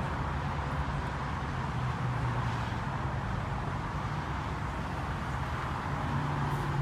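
A vehicle engine running steadily, a constant low hum, over outdoor background noise.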